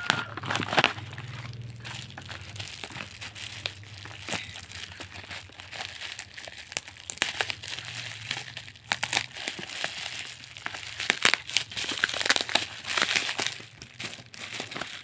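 Plastic bubble wrap and a paper mailing envelope crinkling and rustling as a parcel is unwrapped by hand, with many sharp crackles that come thickest in the last few seconds.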